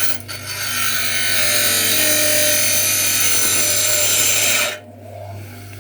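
A power tool running steadily for about four and a half seconds, then cutting off suddenly, over a steady low electrical hum.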